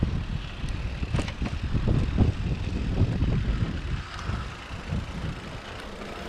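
Riding over a rough dirt trail: a loud, uneven low rumble broken by many short knocks and jolts. It eases after about four seconds.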